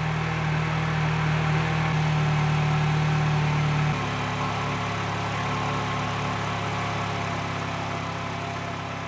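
Car engine idling steadily. About four seconds in its tone changes abruptly and it becomes slightly quieter.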